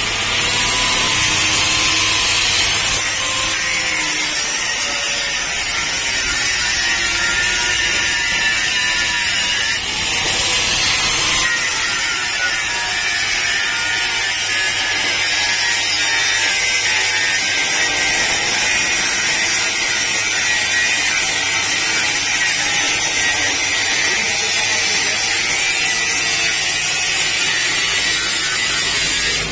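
Handheld electric angle grinder cutting metal: a loud, steady grinding whine that starts abruptly.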